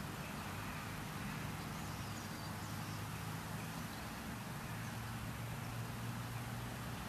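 Outdoor ambience: a steady low hum of distant traffic under a faint hiss, with a few faint bird chirps about two to three seconds in.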